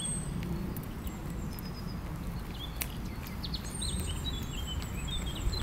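Small songbirds chirping and singing, short scattered tweets with a few thin high whistles, over a steady low rumble.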